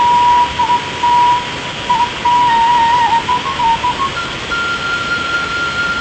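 Background music: a single flute-like melody line that moves in small steps, then holds one long higher note, over a steady hiss.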